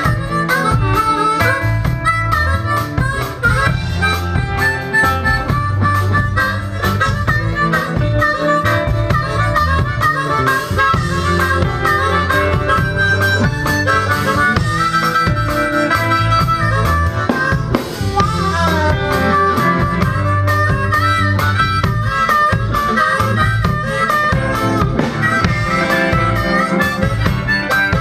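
Harmonica cupped against a vocal microphone, playing a continuous melodic solo over a live band of electric guitar, bass guitar and drum kit.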